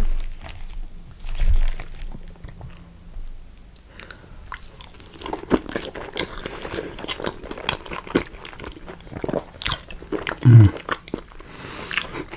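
Close-up chewing of a mouthful of chips, cheese and beans: wet smacking and clicking mouth sounds, quieter at first and busier from about five seconds in.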